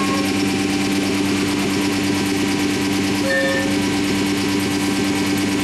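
Anderson Stratos Pro CNC router running with a steady hum and hiss, with a brief higher tone about three seconds in.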